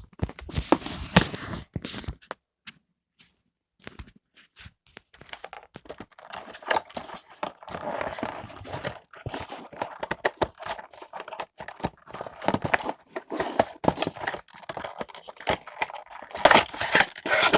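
A model railway wagon's packaging being opened by hand: irregular crinkling, tearing and clicking of the box and its wrapping, with a short pause about two seconds in.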